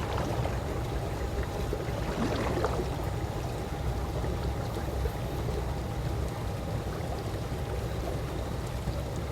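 Calm swimming-pool water lapping and trickling steadily over a low rumble, with a couple of small laps or splashes, and a faint steady hum underneath.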